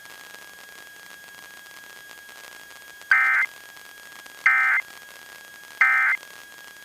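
Three short bursts of Emergency Alert System end-of-message data tones, about 1.4 seconds apart, received over FM radio through a small radio's speaker. Under them run static hiss and a faint steady tone.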